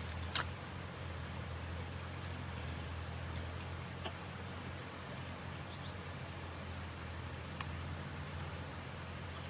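Insects chirping in short trains of rapid high pulses, repeating every second or so over a steady low hum, with a few faint clicks.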